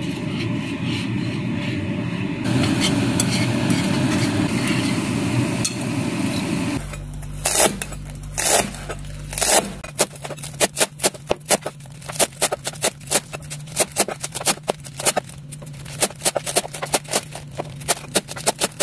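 Eggs sizzling in oil in a frying pan as they are scrambled with chopsticks. About seven seconds in, this gives way to a cleaver chopping Chinese chives on a cutting board: a few heavy chops, then a quick, even run of about four chops a second.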